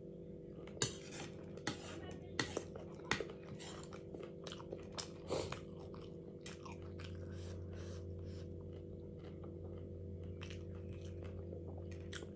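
Utensils clinking and knocking against dishes, a few sharp clinks in the first half, over a steady appliance hum; a deeper low hum comes in about halfway through.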